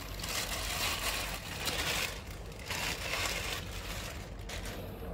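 Clear plastic bag crinkling and rustling in several bursts as it is pulled off a tripod's legs.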